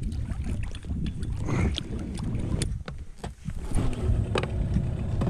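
Wind rumbling on the microphone of a boat out on the water, with irregular knocks and splashes.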